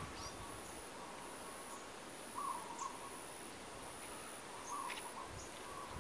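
Faint tropical garden ambience: a steady high-pitched insect buzz, with short hooting calls that repeat about every two seconds.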